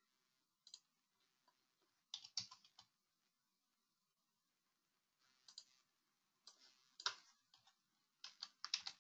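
Faint, scattered computer keyboard keystrokes and mouse clicks in a few short clusters.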